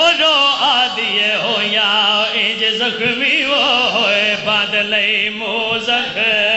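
A male zakir chanting a devotional recitation into a microphone over a PA, his voice wavering and ornamented on held notes, with a steady low drone underneath.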